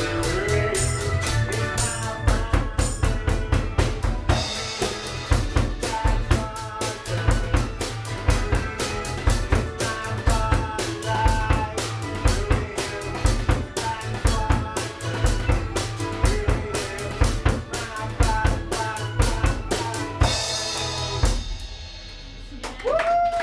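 Live band playing a short song, the drum kit close and loudest with steady kick and snare hits over keyboard music. About twenty seconds in, a cymbal crash ends the song and the room goes briefly quieter.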